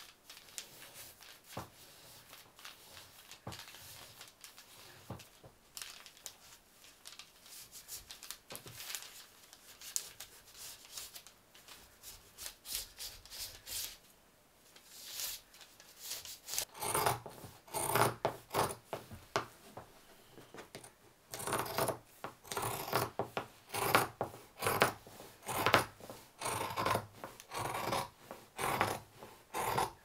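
Tissue pattern paper rustling as it is smoothed over fabric, then from about halfway through, scissors cutting through quilted fabric in a steady run of snips, about two a second.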